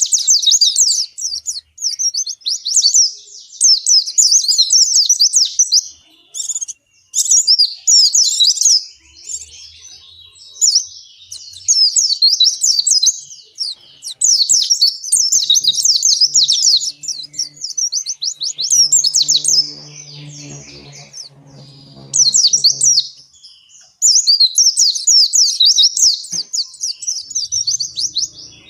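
A white-eye (pleci) singing its long, continuous warbling song: rapid, high-pitched twittering phrases of a few seconds each, broken by short pauses.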